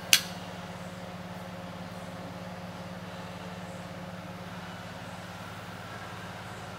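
A single sharp click of the toggle switch on a Jet vertical bandsaw's cabinet just after the start, over a steady low machine hum that carries on unchanged.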